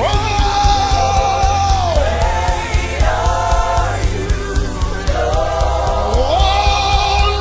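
Live gospel worship music: a singer holds long notes, sliding up into the last one, over a full band with bass and steady drums.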